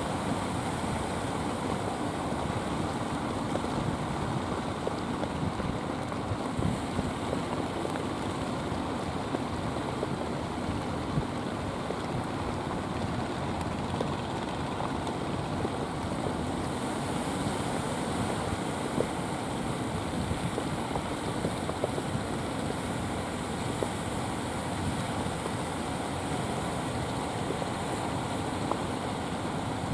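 A steady wash of surf and wind on the shore, with the engines of outrigger fishing boats motoring in faintly beneath it.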